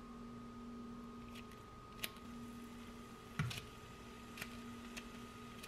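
A few light clicks and taps of a cooking utensil against a frying pan, with one fuller knock about three and a half seconds in, over a faint steady hum.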